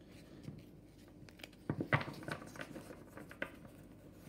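A stack of baseball cards being handled: quiet rustling with scattered light clicks and taps, and a cluster of sharper clicks about two seconds in.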